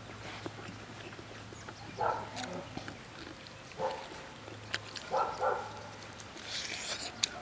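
A dog whining in a few short bursts while a person chews, with sharp clicks of chopsticks against a ceramic bowl.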